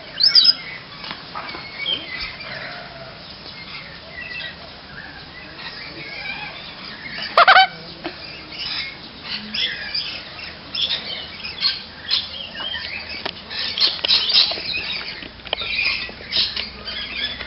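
Tropical birds calling: a busy chatter of short high chirps and squawks, with a loud squawk just after the start and the loudest one about seven and a half seconds in.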